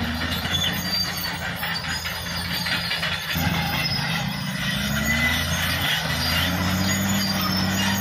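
Caterpillar D6R crawler bulldozer working under load, pushing a pile of gravel with its blade: the diesel engine runs steadily, its pitch rising and falling as the load changes, with the steel tracks squealing and clanking.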